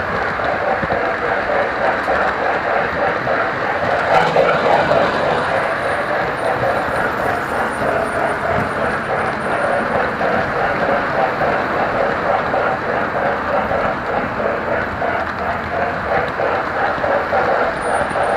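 Model train running along its track, heard from a car riding just behind the Pennsylvania steam locomotive's tender: a steady rolling and rattling of wheels and motor that grows a little louder a few seconds in.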